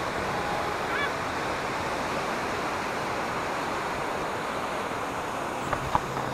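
Ocean surf breaking on the rocks at the foot of a sea cliff: a steady wash of noise, with some wind. Two small clicks near the end.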